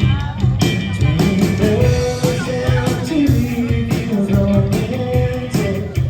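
Rock trio playing live: drums, bass and electric guitar, with a held melody line over a steady beat.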